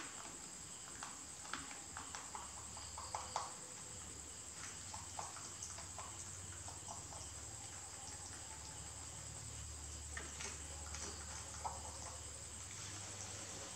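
Domestic rabbit nibbling soursop fruit from a plastic tray: faint, irregular clicks of chewing and biting, a few at a time, over a steady low hum and hiss.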